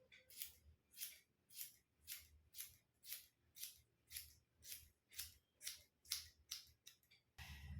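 Hair-cutting scissors snipping through hair in a steady run of short cuts, about two a second. A low steady hum starts near the end.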